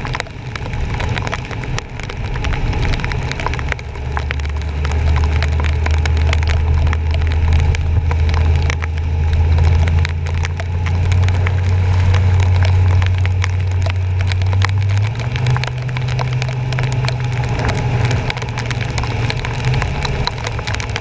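Rain and water spray crackling against a bumper-mounted camera's housing as a truck drives through flooded streets. Under it runs the vehicle's low drone, which steps up in pitch twice.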